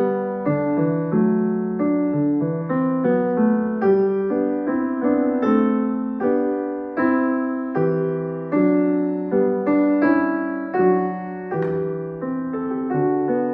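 A grand piano playing a slow piece in full chords, struck about twice a second, each chord fading before the next.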